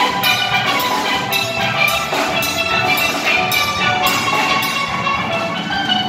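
Live steel pan band playing: many pans struck in quick runs of ringing notes over a steady drum-kit beat.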